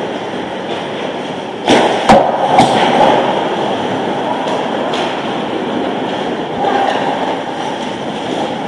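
Ice hockey play on an indoor rink: a steady rushing rink noise with three sharp knocks of stick and puck about two seconds in, and a few fainter knocks later.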